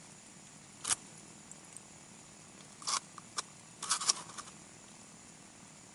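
A few short scratchy rustles: one about a second in, then three or four close together around three to four seconds. They are handling noise in the fishing tent, against a faint steady hiss.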